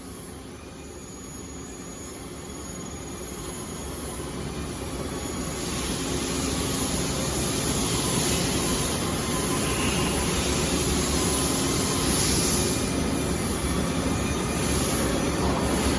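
Steady machine running noise, a rumble and hiss with a faint low hum. It grows louder over the first six seconds, then holds steady.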